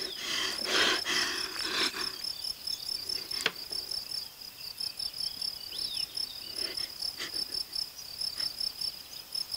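Crickets chirping in a steady, rapid train of high pulses, the sound of a summer night. A rustle comes near the start and a single sharp click about three and a half seconds in.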